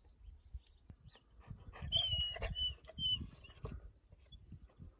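Black dog moving about close by: a cluster of short, high-pitched squeaks about two seconds in, among soft knocks and shuffling.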